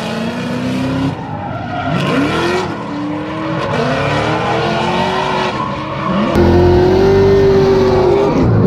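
Two drift cars tandem-drifting, their engines revving up and down with the throttle over the squeal of sliding tyres. About two-thirds in, one engine note gets louder and holds steady at high revs.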